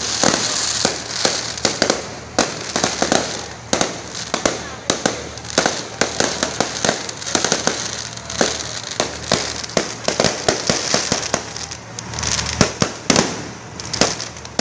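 Aerial fireworks bursting overhead: a rapid, irregular string of sharp bangs and pops, several a second, over a steady hiss, thinning out near the end.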